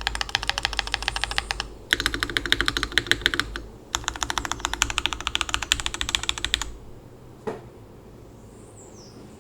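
NK87 mechanical keyboard with Jwick Red linear switches lubed with Krytox 205g0, a carbon fibre plate and DMK keycaps, typed on fast in three runs of about ten keystrokes a second with short pauses between. A single keystroke follows about seven and a half seconds in.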